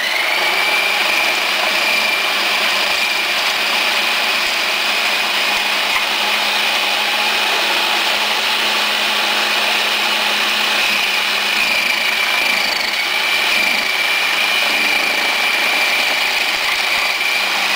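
Electric food processor (vegetable shredder) running steadily as chives are pushed down its feed chute and shredded. A constant motor whine sits over a grinding hiss, rising briefly as the motor spins up at the start.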